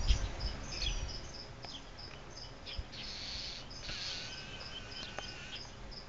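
Small birds calling around a boa constrictor: a short high chirp repeated about three times a second, with a few quick falling chirps, the calls of birds mobbing the snake. A brief low rumble at the start.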